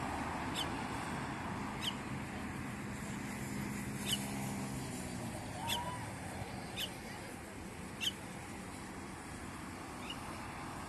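Short, sharp bird chirps, repeated about every one to two seconds over steady outdoor background noise.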